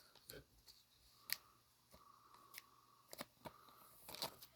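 Near silence with a few faint, sharp clicks and light handling noises from trading cards being handled and turned.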